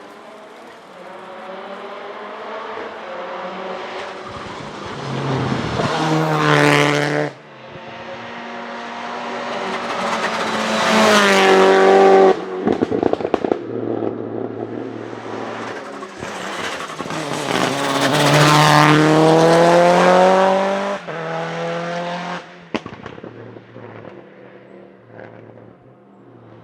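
Mitsubishi Lancer Evolution VI Group A's turbocharged 4G63 four-cylinder accelerating hard, rising in pitch three times with sharp drops at the gear changes. A rapid string of pops and bangs from its anti-lag misfiring system comes when the throttle lifts, about 12 seconds in.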